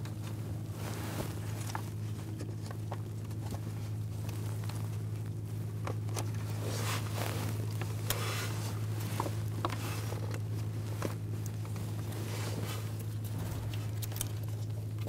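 Faint rustling and light clicks and taps of gloved hands handling wiring and a plastic wire tie under a car, over a steady low hum.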